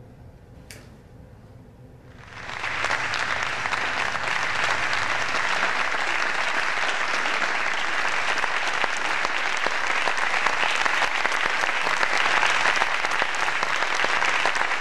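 Audience applauding: near quiet for the first two seconds, then steady applause sets in and keeps going.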